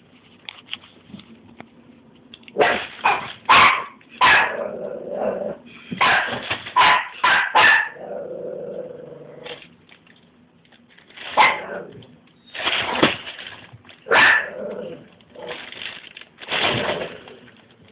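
Pomeranian puppy barking in clusters of sharp, high yaps, with a lower drawn-out growl in between. He is alarmed by a trash bin being moved.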